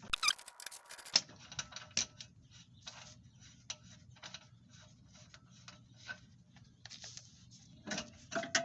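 Socket ratchet clicking in an uneven series of sharp ticks, a few a second, as the 22 mm lower shock-absorber bolt is turned out, after a short louder metallic clatter at the start.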